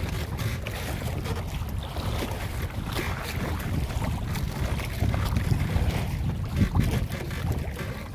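Wind buffeting the microphone over the rush of water along the hull of a small outrigger boat under way, a steady low rumbling noise.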